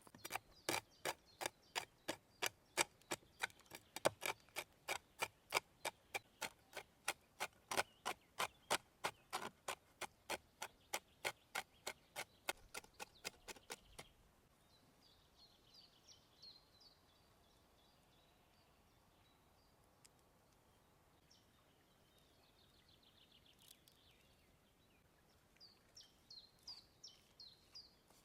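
A knife chopping on a cutting board in quick, even strokes, about three a second: beef tenderloin being hand-minced for tartare. It stops about halfway through, leaving small birds chirping in short bursts.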